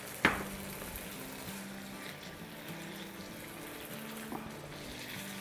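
Tomato masala with ridge gourd simmering and hissing softly in a hot wok just after half a cup of water was added, with one sharp tap of a silicone spatula against the pan about a quarter second in.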